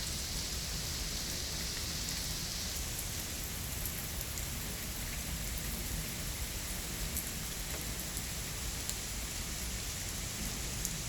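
Steady rain falling, a continuous hiss with scattered individual drops ticking; the higher part of the hiss eases a little about three seconds in.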